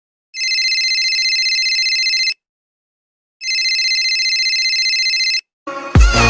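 Electronic telephone ringer trilling: two rings of about two seconds each, a second apart. Loud electronic music with a heavy beat starts just before the end.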